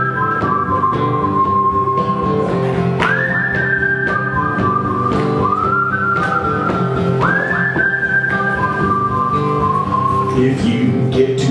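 Song intro: a whistled melody over guitar accompaniment. Its phrases each start with a quick upward swoop to a high held note, then step down through lower held notes, with new phrases about three and seven seconds in.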